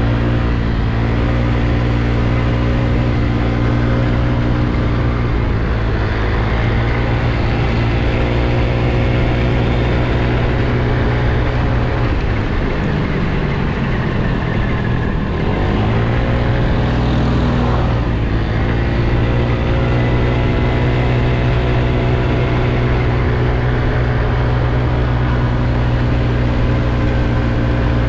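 Motor scooter engine running at a steady cruise. About halfway through the engine note drops as the throttle is eased off, then climbs back as it accelerates again.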